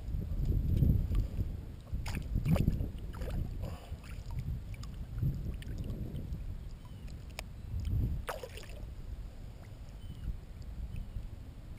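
Shallow water sloshing and splashing as a hooked redfish is pulled in by hand and lifted out. There are a few sharp splashes about two to four seconds in and another near eight seconds.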